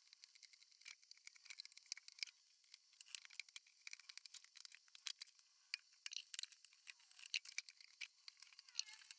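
Faint, scattered clicks and light rattling of a plastic bucket and small loose bits being handled on a concrete floor.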